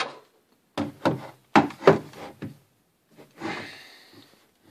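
Homemade wooden boat steering being turned, its shaft and cable hub making a little noise: several sharp knocks and clicks in the first couple of seconds, then a longer scraping rub about three seconds in. The steering shaft is still dry, not yet oiled.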